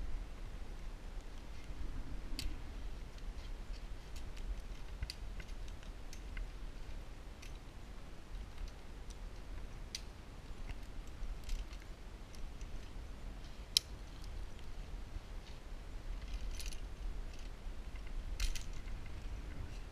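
Scattered small clicks and clinks of metal climbing hardware, carabiners and rappel gear being handled at an anchor, over a low rumble. One sharper click comes about two-thirds through, and two brief scraping rustles near the end.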